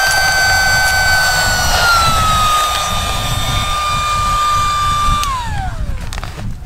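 A small electric motor runs with a steady high whine, drops a little in pitch about two seconds in, then is switched off and winds down in a falling glide near the end.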